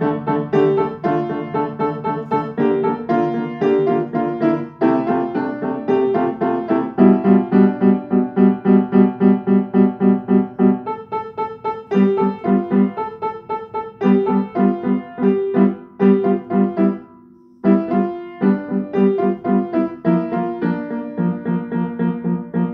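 Piano music: a steady stream of struck notes and repeated chords, breaking off briefly about seventeen seconds in, then going on.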